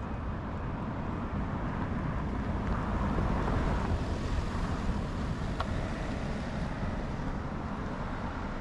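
City street traffic noise: a steady hum of passing vehicles, with a vehicle passing close and swelling about three to five seconds in. A short click about five and a half seconds in.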